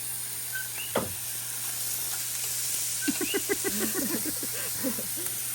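Meat sizzling on a hot grill, a steady hiss.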